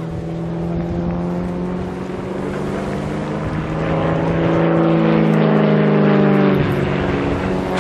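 Extra 300L aerobatic plane's six-cylinder Lycoming piston engine and propeller running at power as it flies a display routine. The engine note is steady at first, shifts in pitch about halfway through, and changes sharply about a second before the end.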